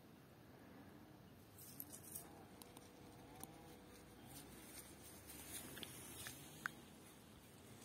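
Near silence: room tone with a scattering of faint, sharp clicks and taps.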